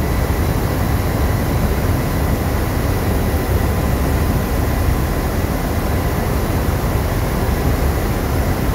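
Steady, loud engine-room machinery noise of a ship under way: a constant low rumble with a faint steady whine.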